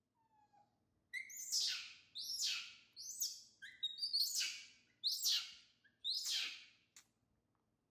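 A young macaque giving a run of about six shrill calls, roughly one a second, each starting high and sliding down in pitch.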